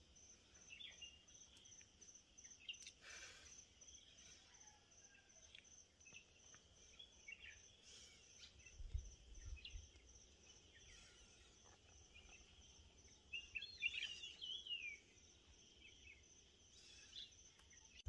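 Faint garden ambience: a steady, evenly pulsing high insect trill with scattered short bird chirps, a busier run of chirps in the second half. A brief low rumble comes about halfway.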